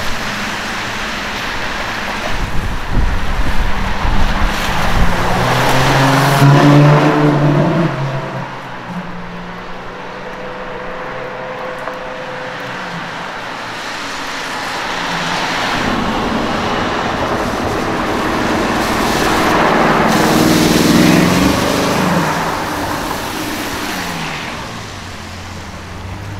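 Supercar engines accelerating and passing on a wet road, the engine notes climbing and then falling away several times. The loudest pass comes about a third of the way in, with a quieter stretch of steadier engine running in the middle.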